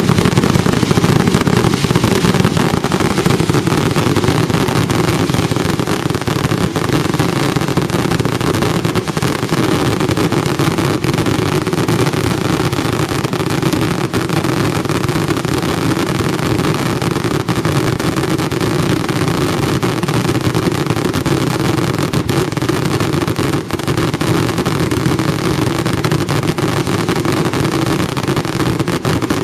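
A dense, unbroken fireworks barrage: a loud, steady roar thick with many small cracks, with no pauses between shots.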